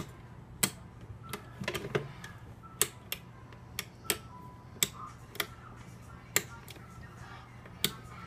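Sharp, irregular metallic clicks, one or two a second, from a bent paper clip being worked in a handcuff lock while trying to pick it open.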